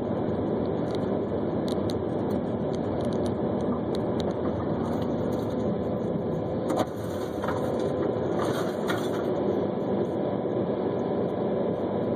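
Steady engine and road noise of a moving car, with a few faint ticks and a brief click and dip in level about seven seconds in.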